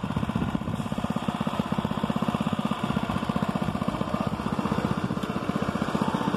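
Mini bike's small gas engine idling steadily, with an even, rapid beat.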